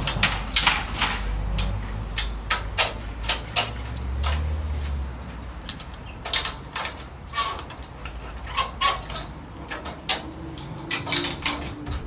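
Irregular sharp knocks and clinks, a few with a brief high ring, over a low rumble that fades about five seconds in.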